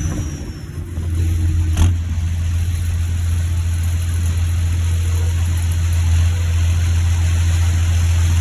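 John Deere 7530 tractor's six-cylinder diesel running steadily, a constant low drone. A high turbo whistle falls away in the first moment, and a brief click sounds about two seconds in.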